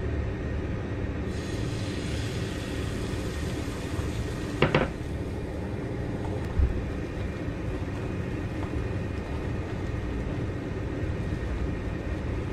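Beaten egg hitting a hot oiled frying pan and sizzling, the hiss starting suddenly about a second in and slowly settling, over a steady low rumble. A short ringing clink comes about halfway.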